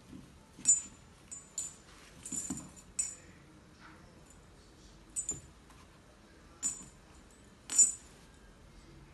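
Irregular sharp clicks and clinks, some with a brief bright metallic ring, from an Airedale Terrier puppy playing with an apple on a tile floor. The loudest come about a second in and near the end.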